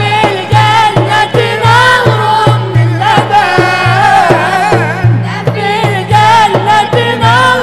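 Mixed group of men and women singing an Arabic Islamic devotional song (inshad) for the Prophet's birthday in chorus, with a steady low frame-drum beat about twice a second.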